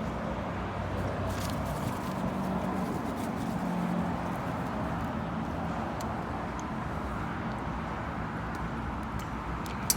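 Steady outdoor background of wind and road traffic, with a faint low hum.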